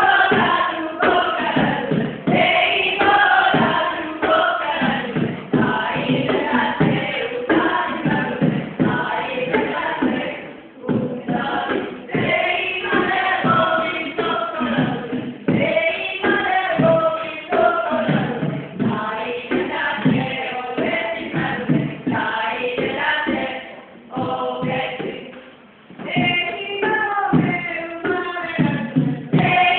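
A group of voices singing a song together live, over a regular beat. The singing drops away briefly about a third of the way in and again for a couple of seconds near the end.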